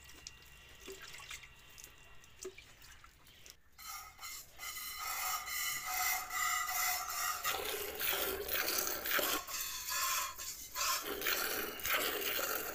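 Cow being milked by hand, milk squirting into a metal bucket in a rhythm of short squirts. It is faint at first and louder from about four seconds in.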